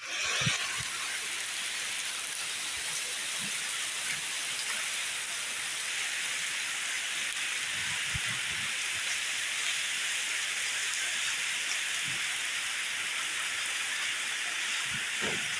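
Heavy rain falling steadily, an even hiss of rain on surfaces, with a few soft low knocks from heavier drops now and then.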